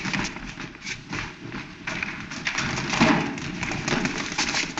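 An uneven run of thumps and taps as people scramble and jostle, with a heavier thump about three seconds in, over the hiss of an old film soundtrack.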